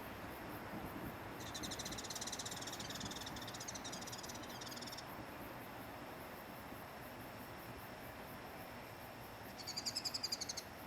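An insect trilling in rapid, even pulses, high-pitched: one bout of about three and a half seconds, then a shorter, louder bout near the end, over faint outdoor background noise.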